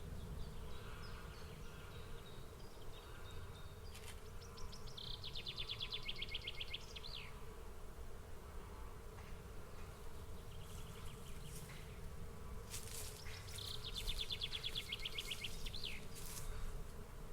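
A swarm of bees buzzing steadily. Twice, a high, rapid trill sounds over the swarm for two to three seconds, once about five seconds in and again near the end.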